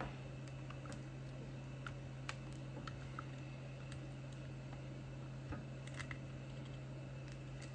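Scattered faint clicks and light scrapes of a screwdriver working at a tight screw inside a plastic speaker housing, over a steady low hum.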